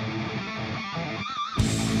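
Background rock music led by guitar, with a short break about one and a half seconds in before it comes back loud.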